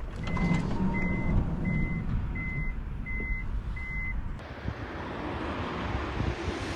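Six short, evenly spaced electronic beeps, all at one high pitch, about 0.7 seconds apart; they stop about four seconds in, where a steady rushing noise takes over.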